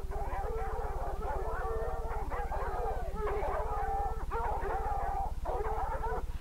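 Several hunting dogs baying and yelping at a wild hog they are holding at bay, their calls overlapping without a break, over a steady low hum.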